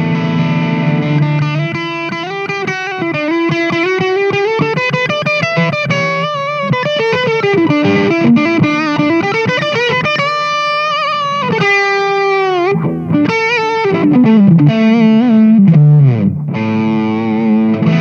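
Electric guitar played through an Ernie Ball Expression Overdrive pedal: an overdriven lead line of quick notes with string bends and vibrato, a long wavering held note, and a slide down in pitch, with sustained chords at the start and end.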